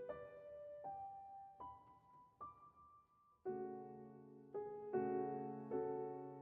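Soft background piano music. It plays a slow rising line of single notes, then fuller chords from about three and a half seconds in.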